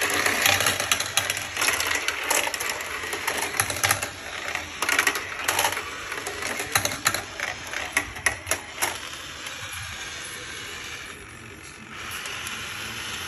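Glass marbles clattering and rolling through a plastic toy racetrack set: many quick clicks and knocks, which thin out and stop about nine seconds in.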